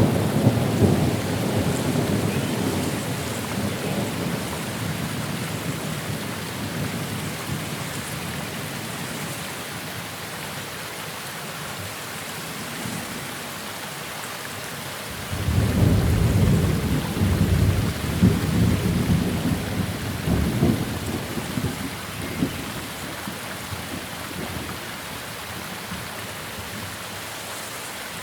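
Steady rain during a thunderstorm. A roll of thunder dies away over the first several seconds, then a second peal breaks suddenly about fifteen seconds in, rolls for several seconds and fades.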